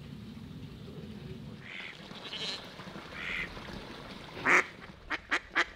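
Ducks quacking on a pond: a few soft calls, one loud quack about four and a half seconds in, then a quick run of quacks near the end.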